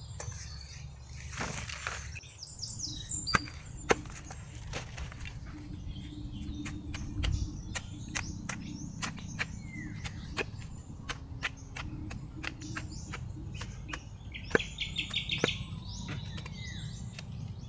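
Bolo knife chopping and cutting into a Latundan banana sucker's corm and roots, trimming it for whole-corm macropropagation: a run of short sharp chops, about two a second, with birds chirping around.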